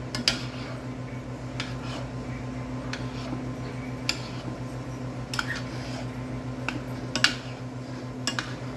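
Scattered clinks and knocks of dishes and kitchen utensils, about nine sharp ones spread out, the loudest late on, over a steady low machine hum.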